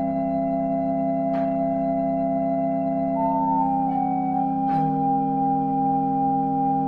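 Organ played four hands, holding sustained chords that change about three seconds in and again near five seconds in. Brief clicks sound around the chord changes.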